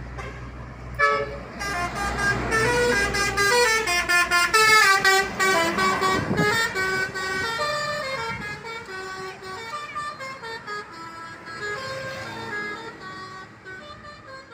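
Basuri 'telolet' multi-tone bus horn playing a melody of stepped notes. It starts about a second in and fades near the end.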